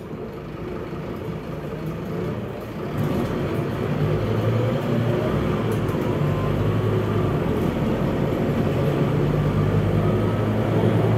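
Scania K230UB bus with its Scania DC9 230 hp five-cylinder diesel and ZF Ecomat automatic gearbox, heard from inside the cabin while under way. The engine note and road rumble build over the first few seconds as the bus picks up speed, then run on steadily.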